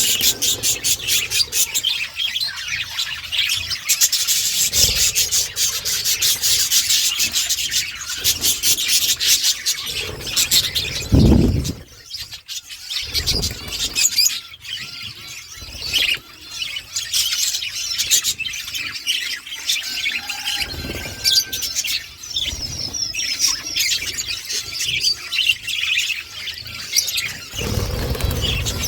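A flock of budgerigars chattering and warbling, with dense rapid chirping in the first ten seconds or so that thins out after. A low thump about eleven seconds in, and another near the end.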